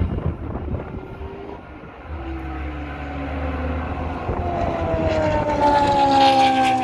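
Historic Formula One racing engines at high revs on track. One fades away over the first couple of seconds, then another car's engine grows louder toward the end, its pitch sliding slowly downward.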